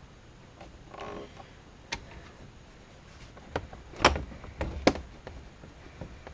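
A few sharp clicks and knocks, with a brief rustle about a second in, from hands and fittings working at the bolts of a Jeep Wrangler's lower dash panel. The loudest two knocks come near the end.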